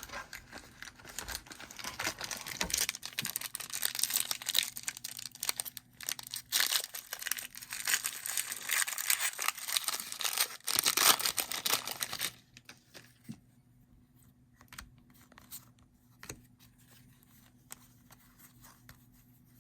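Foil trading-card pack wrapper being torn open and crinkled for about twelve seconds, then only faint light ticks of card handling.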